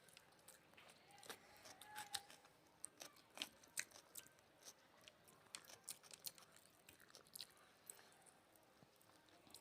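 Faint chewing and mouth sounds of people eating a meal of rice and curry, with many small, irregular clicks and smacks.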